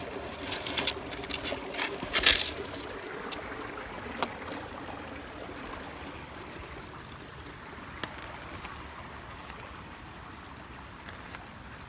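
Flowing river water as a steady rush, with a cluster of sharp knocks and rustles in the first few seconds, the loudest a little past two seconds in.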